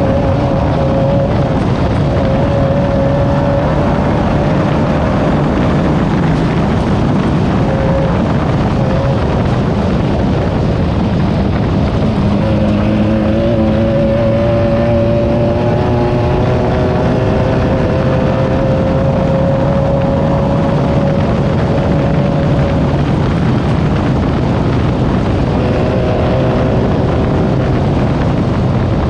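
Class 9 off-road race buggy's air-cooled VW engine running hard at speed, with wind and rough-terrain noise over it. Its pitch climbs slowly through the middle as the car accelerates.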